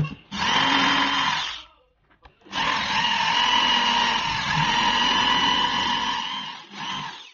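Homemade DC 775 motor hand drill with a step drill bit boring into a black disc, running with a steady whine. It runs in a burst of about a second and a half, stops briefly, then runs steadily for about four seconds, with one more short burst near the end.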